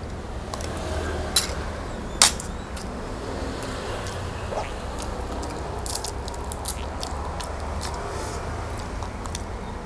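Grilled shrimp shells being cracked and peeled by hand while eating, with two sharp cracks about a second and a half and two seconds in, then lighter clicks and crackles of shell, with a steady low hum underneath.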